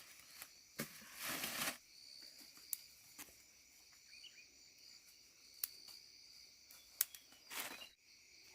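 A steady, high-pitched insect chorus. Scattered sharp clicks and two brief rustling bursts, about a second in and near the end, sound over it.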